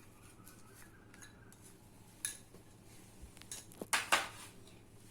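A spoon clinking against a mixing bowl as spice powder is spooned in: a few short, sharp clinks in the second half, the loudest about four seconds in.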